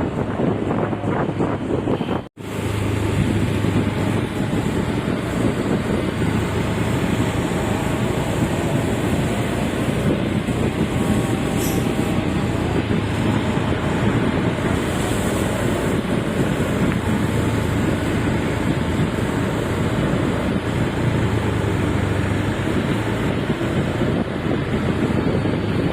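Truck engine running with steady road and wind noise while driving, cut off by a brief dropout about two seconds in.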